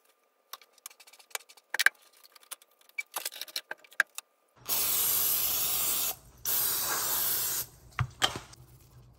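Two long hisses from an aerosol can of cooking spray, each about a second and a half with a short break between, sprayed onto a toasted English muffin. Before them only faint scattered clicks and taps; a couple of sharp knocks follow.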